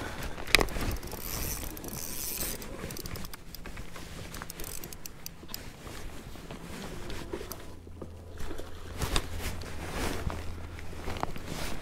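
Spinning reel being cranked and the rod handled in a kayak: scattered light clicks and knocks, with a low steady hum joining about eight seconds in.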